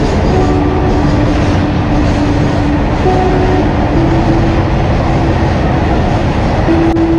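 Freight train of covered goods wagons rolling past alongside the platform: a loud, steady rumble and clatter of wheels on rail, with faint humming tones that step to a new pitch every second or so.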